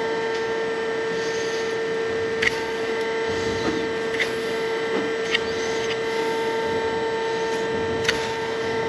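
A steady machine hum runs throughout. A few short, sharp clicks come from a hoof knife paring the sharp edges of horn off a cow's claw.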